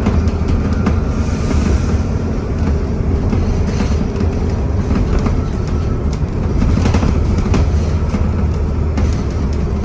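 Alexander Dennis Enviro400 double-decker bus under way, heard from inside: a steady deep engine and road rumble with light rattles, and a faint steady whine from the turbocharger whistle.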